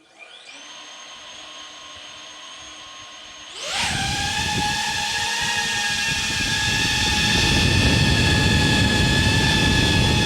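DJI quadcopter drone's motors spinning up with a rising whine and holding a steady idle. About three and a half seconds in, the propellers throttle up sharply for takeoff into a much louder, steady whine with several pitches.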